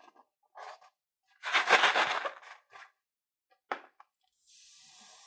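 Latex balloon squeaking in a rapid stutter as fingers rub it, then a single sharp snip about three and a half seconds in as scissors cut near the balloon's neck, followed by a steady hiss of air escaping from the snipped balloon near the end.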